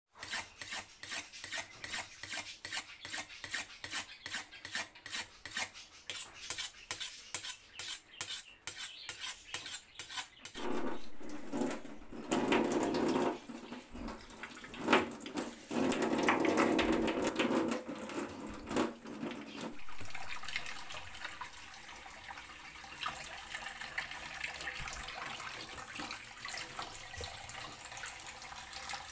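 Kitchen prep at the sink: a run of regular sharp utensil strokes, about two a second, like a knife cutting or scraping. Then water from a tap runs in uneven rushes, settling to a quieter steady hiss for the last several seconds.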